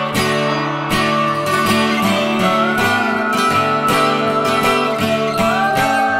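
Background music: acoustic guitar strummed in a steady rhythm.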